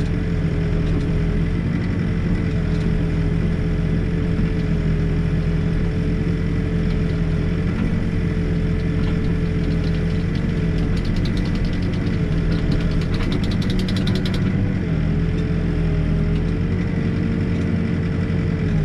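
Backhoe engine running steadily, with a steady whine that dips briefly a few times. From about ten seconds in, a fast rattle of clicks runs over it for about four seconds.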